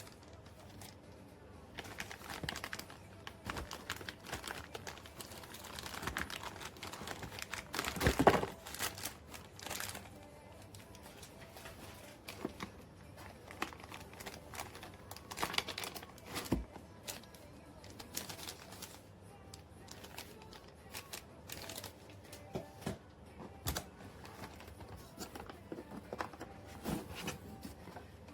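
Scattered clicks, knocks and crinkling from objects being handled, with a louder cluster of knocks about eight seconds in.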